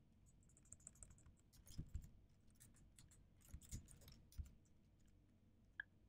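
Faint, irregular keystrokes on a computer keyboard as code is typed.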